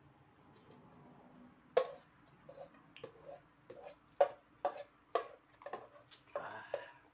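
A spoon knocking and scraping against the inside of an aluminium cooking pot while rice porridge is scooped out and eaten. The sound is a run of sharp clicks at irregular intervals, starting about two seconds in.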